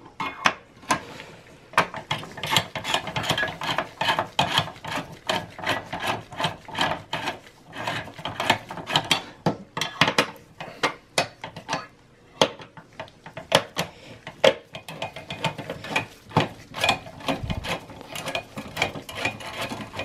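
Phillips screwdriver turning out the screws of a Dell Precision T5600 CPU heatsink: a continuous run of irregular scraping clicks as the screws are backed out.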